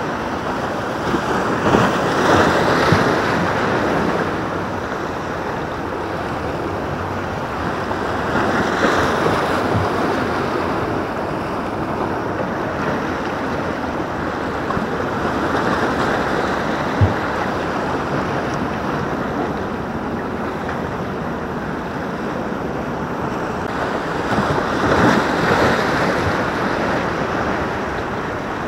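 Sea swell breaking and washing over shoreline rocks, surging louder every several seconds, with wind on the microphone. A single sharp knock about halfway through.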